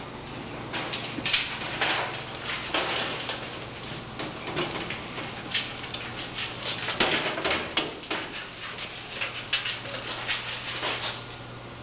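Shredded mixed waste (plastic, paper and wood ground in a hammermill hog) tipped from a steel drum into a galvanized metal trash can, rustling and pattering down with irregular clatters and knocks of metal on metal.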